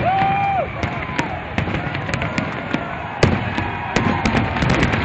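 Fireworks crackling and popping in rapid, irregular cracks, with one louder bang about three seconds in, over the noise of a crowd.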